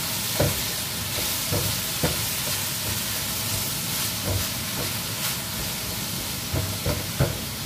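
Chopped napa cabbage sizzling in a hot wok as it is stir-fried, with a spatula scraping and knocking against the pan every second or so.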